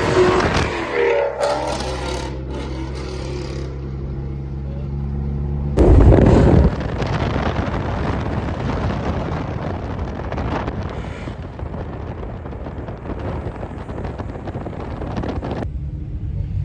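Car engine running with a steady low drone, a sudden loud burst about six seconds in, then a rougher noisy rumble.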